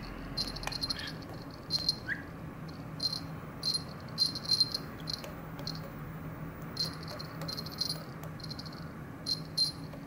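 A male budgerigar chattering in short, high chirping bursts, about a dozen, coming irregularly, over a steady low hum.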